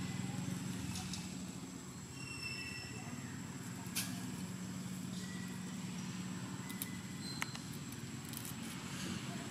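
A steady low engine hum, with a few sharp clicks and a faint, steady high-pitched tone.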